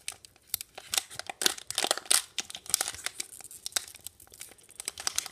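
Foil booster-pack wrapper crinkling and crackling in irregular clusters as fingers pull at its crimped seal, which does not give way.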